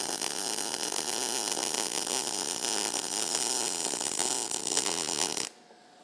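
MIG welding arc crackling steadily as a bead is run along a butt joint in 10-gauge steel plate, then cutting off abruptly about five and a half seconds in as the torch trigger is released. After it, only a faint steady hum remains.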